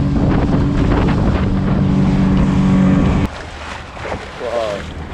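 Motorboat engine running at speed with water rushing along the hull and wind on the microphone. About three seconds in it cuts off suddenly, leaving only a quieter low hum.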